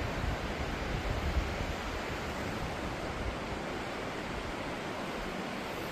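River water rushing through a rock arch: a steady, even hiss, with some low wind buffeting on the microphone in the first second or so.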